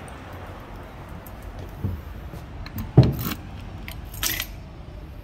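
Keys jangling as a small metal post office box door is unlocked and opened, with a loud clunk about three seconds in and bright metallic clinks after it.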